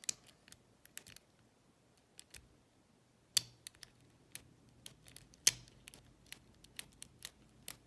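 Lock pick and tension wrench clicking and scraping in an old Yale pin-tumbler padlock's keyway: irregular sharp metal ticks, two louder clicks about three and a half and five and a half seconds in, with the lock not opening.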